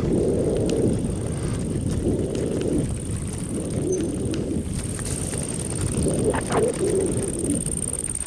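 Wind buffeting the microphone of a camera moving along a rutted dirt track, in low swells every second or two, with small clicks and rattles from the ride over the bumps.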